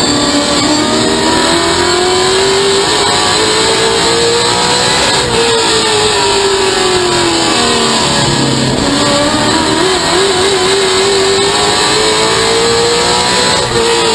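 A stock car's engine heard from inside its cockpit at racing speed. It climbs in pitch under throttle, drops as the driver lifts, and climbs again, twice in all, as the car accelerates down the straights and slows for the turns of the short oval.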